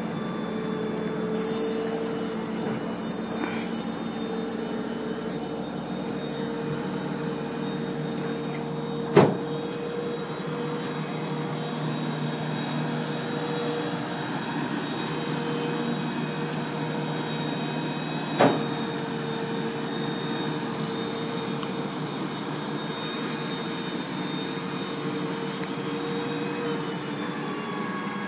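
2005 tow truck's engine and rollback bed hydraulics running steadily with a constant tone, while the bed and winch are worked to unload a vehicle. Two sharp clunks stand out, about nine seconds in and again about nine seconds later.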